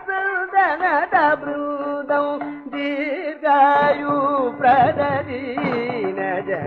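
Male Carnatic vocalist singing a kriti in Vasanta raga, with the rich gliding ornaments of the style, accompanied by violin and mridangam, as heard from an old 45 RPM disc recording.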